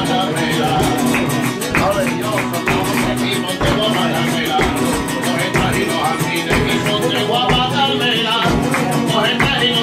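Flamenco played live on an acoustic guitar, with hand-clapping (palmas) keeping the rhythm in sharp, repeated claps.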